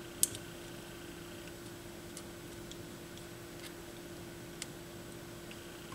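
Faint clicks and ticks of a small hand tool and parts being handled inside an opened turntable chassis, as a part is fitted into place: one sharper click about a quarter of a second in, then a few fainter ticks, over a low steady hum.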